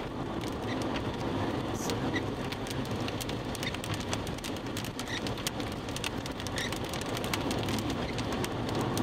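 Rain pattering on a vehicle, with many sharp drop ticks over a steady low rumble.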